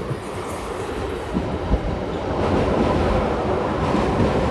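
A train running on the rails: a steady rush of wheel and track noise with a few low knocks.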